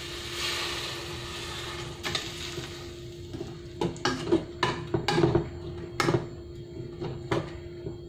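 Water poured from a mug into an aluminium pot for about two seconds, then a metal spoon clinking and knocking against the pot as the stew is stirred. A faint steady hum runs underneath.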